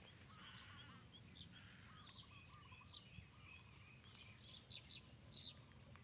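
Faint birdsong: several birds chirping in short, repeated notes, with a few sharper high notes near the end.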